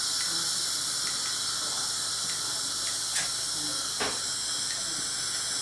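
Dental suction hissing steadily as it draws air through the aspirator tip, with a couple of light clicks about three and four seconds in.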